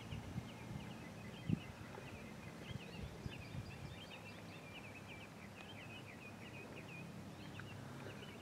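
Birds singing faintly: a steady run of quick, high chirps and warbles. A low rumble sits underneath, with one short knock about a second and a half in.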